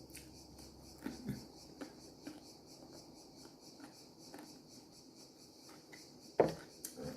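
Faint handling noise of small clicks and rubbing, with a short louder knock about six and a half seconds in and a smaller one just after.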